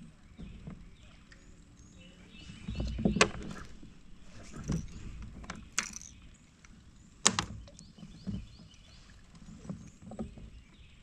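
Fishing tackle and a baitcasting rod being handled in a kayak: scattered knocks and clicks, the sharpest about three seconds in and about seven seconds in.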